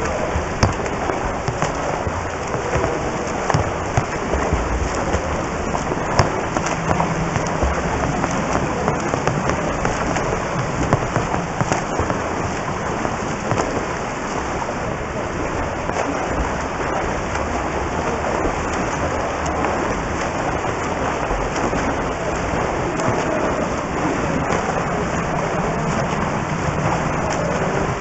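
Pool water splashing and churning as front-crawl swimmers stroke past close to the water surface: a steady rush of sloshing water with a few sharper splashes.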